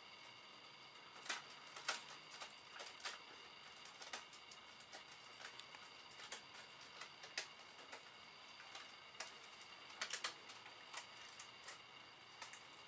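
Thin plastic swirl decorations being handled and pulled out along their perforated edges: scattered small clicks and crackles at irregular intervals, with a quick pair of clicks near the end.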